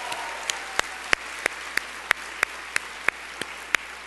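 Audience applauding, with one person's sharp hand claps close to a lectern microphone standing out above it, about three a second. The applause dies down toward the end.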